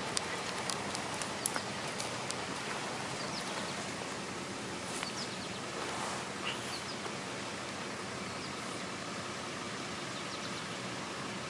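Steady outdoor background noise with a few light clicks in the first couple of seconds and faint, short bird chirps scattered through.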